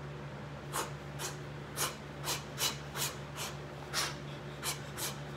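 Short, sharp hissing exhalations, one with each punch, as a boxer shadowboxes a fast combination: about a dozen quick bursts, irregularly spaced.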